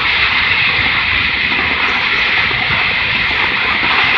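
Firework fountain burning with a steady hiss.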